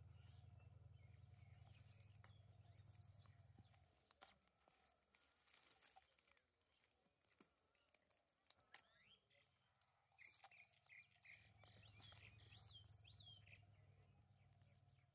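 Near silence: faint bird chirps come and go. A faint low hum runs through the first four seconds and returns for the last few seconds.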